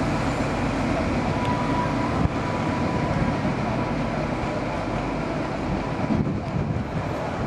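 InterCity 125 (HST) diesel power car running as the train moves slowly along the platform, a steady low rumble that eases off slightly near the end.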